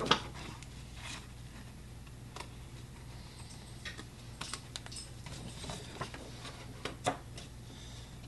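Scissors cutting out paper shapes: irregular snips and clicks of the blades, the loudest right at the start and about seven seconds in.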